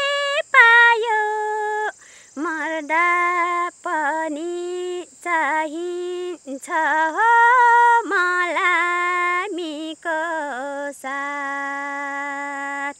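A woman singing a Nepali folk song unaccompanied. She holds long notes with wavering, ornamented bends, and her phrases are broken by short pauses for breath.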